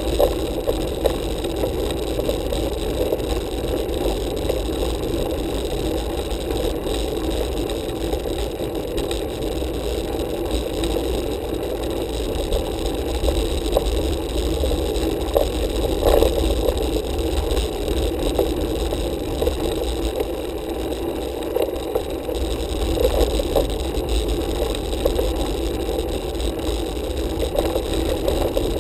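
Steady rolling noise of a road bike on asphalt, picked up by a handlebar-mounted camera: tyre and wind noise with occasional small rattles and clicks from the bike.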